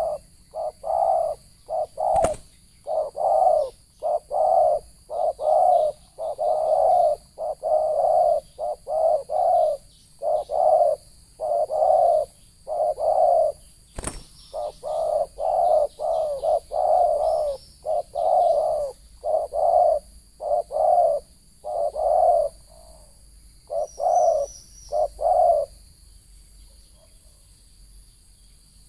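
Spotted dove (terkukur) cooing over and over in quick repeated notes, stopping a few seconds before the end. Two sharp clicks sound, about two seconds in and about halfway through.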